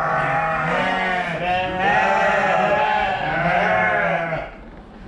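A flock of sheep bleating, several loud calls overlapping one another, dying down about four and a half seconds in.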